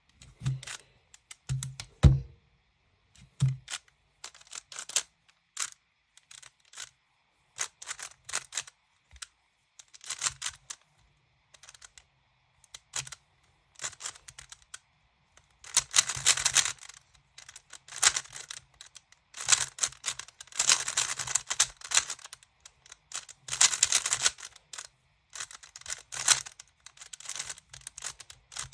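Clicking and clacking of a GAN maglev speedcube's layers being turned by hand during a solve. There are scattered short runs of turns at first, then dense, rapid bursts of turning in the second half.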